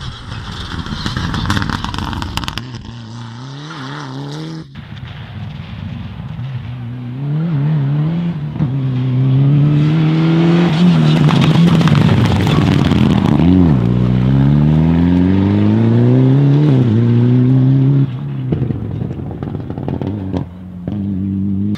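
Mitsubishi Lancer Evolution rally car's turbocharged four-cylinder engine driven hard on a special stage. The revs climb and drop repeatedly through gear changes, growing loudest in the middle as the car passes close, with a brief lift near the middle.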